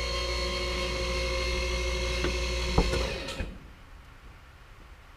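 Handheld electric power tool running with a steady whine, switched off about three seconds in and winding down. There is a sharp knock just before it stops.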